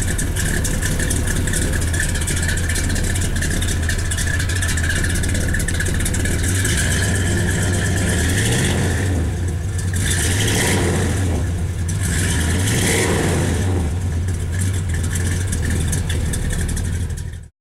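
1967 Dodge Coronet R/T's 440 cubic-inch V8 running through its exhaust, mostly idling steadily, with a few short revs around the middle. It cuts off abruptly just before the end.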